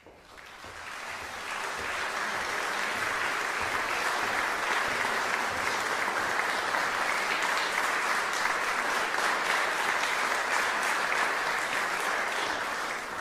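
Concert audience applauding, a dense steady patter of many hands clapping that swells in over the first couple of seconds and starts to fade right at the end.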